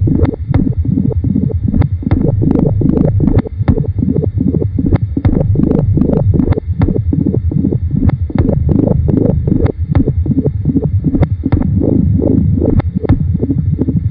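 Experimental noise and tape-music collage: a dense, loud low rumble with sharp clicks popping through it several times a second.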